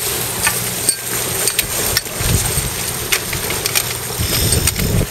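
Wind buffeting the microphone and water rushing past a sailing yacht under way, with a low steady hum underneath and several sharp clicks and knocks of metal fittings as the aluminium spinnaker pole is handled at the mast.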